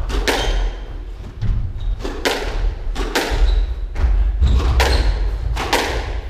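Squash rally: the ball cracks off rackets and court walls in a string of sharp smacks, about one every half second to second. Under them are dull thuds of the players' feet on the wooden court floor.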